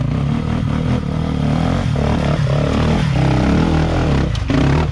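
Dirt bike engine revving unevenly under load as the motorcycle climbs a steep rock step, with a sharp knock about four seconds in.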